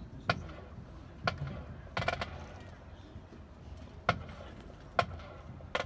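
Scattered sharp knocks and clacks, six or so at uneven intervals, over a low rumbling background.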